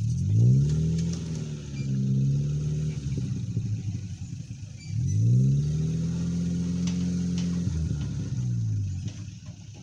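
Off-road vehicle's engine revved hard twice: each time the pitch climbs quickly and holds high for a few seconds. The second run drops away near the end.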